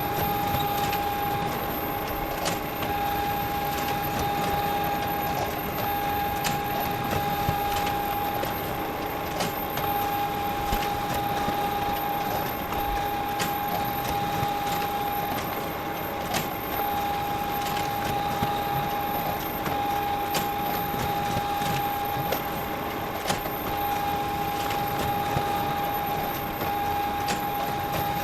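Photocopier running continuously: a steady mechanical whir with a constant whine and faint scattered ticks.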